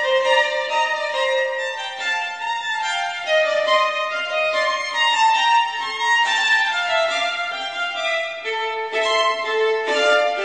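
Background music: a violin playing a melody in a series of moving notes.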